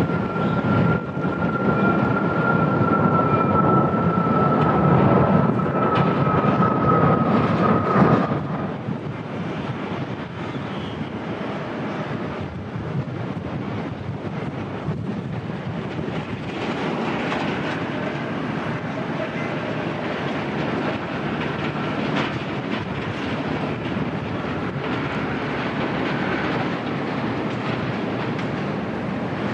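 Boeing 737 MAX 8 jet engines running loud with a steady high whine that slowly drops in pitch, as the aircraft pulls away on a go-around; the sound falls off sharply about eight seconds in, leaving a quieter steady rumble.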